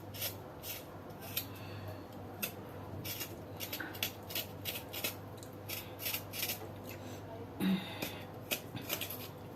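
Fresh ginger root being peeled by hand: short scraping strokes against the skin, about two a second and unevenly spaced, over a faint low steady hum.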